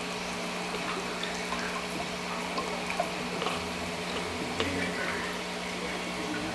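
Aquarium filter running: water trickling and bubbling over a steady low motor hum, dotted with small drips and splashes.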